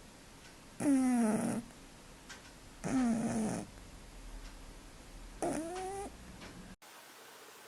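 Sleeping cat snoring: three pitched, drawn-out snores, each under a second and about two to two and a half seconds apart, in time with its breathing.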